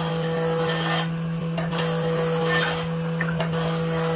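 Repeated scraping, rasping strokes of a hand tool on wooden boards, each lasting roughly half a second to a second, over a steady low hum.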